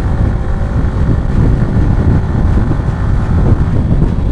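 Motorcycle engine running steadily at highway speed, with wind rushing over the microphone.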